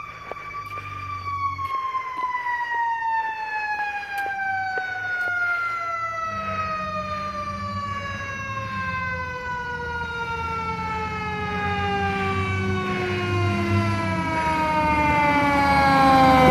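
Fire engine siren winding down in one long, slowly falling tone. The truck's engine rumble builds underneath as it approaches, and the whole sound grows louder toward the end.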